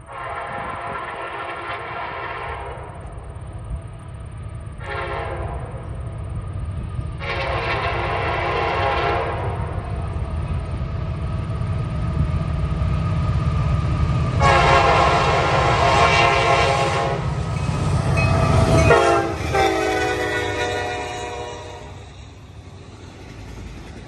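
CSX diesel locomotive pair's multi-chime air horn sounding a series of blasts, one short among several long ones, over the growing rumble of the approaching engines. The last blast drops in pitch as the locomotives pass, about 19 seconds in, and then the rumble eases as the autorack cars roll by.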